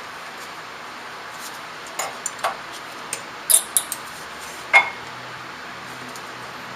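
Metal brake parts clicking and clinking as the new brake pads and their hardware are handled at the caliper: a quick, irregular series of sharp clicks between about two and five seconds in, the last the loudest with a brief ring.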